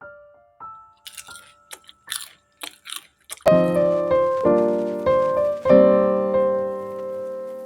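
Crisp fried potato chips being bitten, a few short dry crunches in the first three seconds over soft piano notes; about three and a half seconds in, loud piano music with held chords takes over.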